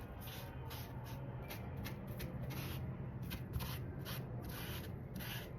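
Repeated rubbing strokes on leather, about two or three a second, as black shoe dye is worked into a worn leather handbag handle.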